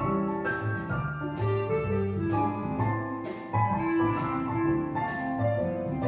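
Instrumental break of a song, with held pitched notes over a bass line and regular percussive hits, played back over hi-fi bookshelf loudspeakers.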